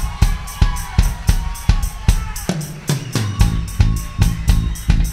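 Drum kit playing a steady live beat on kick and snare, about three hits a second. Low sustained notes join about halfway through.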